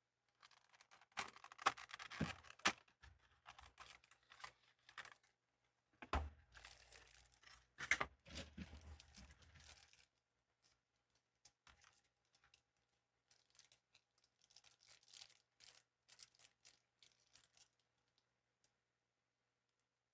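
Blind-box packaging being torn open and crinkled by hand, in two louder spells of tearing and crackling in the first half and softer rustling later.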